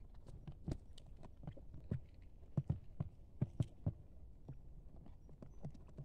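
Quail pecking and stepping on the trap board and the sandy ground: irregular soft taps and dull thumps, a few a second.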